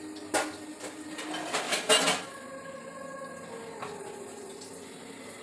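A few clinks and knocks of a stainless steel bowl as hands handle paniyaram in it. The loudest clatter comes about two seconds in.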